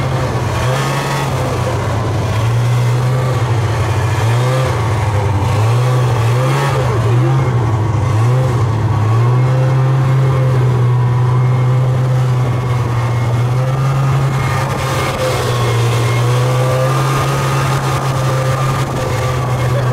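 Snowmobile engine running under way, its pitch wavering up and down with the throttle about a third of the way in, then holding steady, with another dip and rise later.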